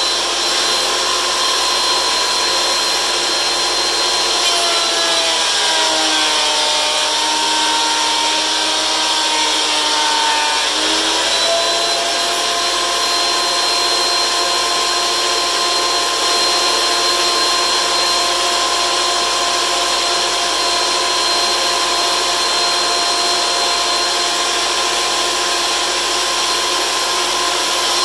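DeWalt benchtop thickness planer running, a steady loud motor and cutterhead whine as a board is planed. About five seconds in the whine sags lower under the load of the cut, then climbs back to full speed about eleven seconds in.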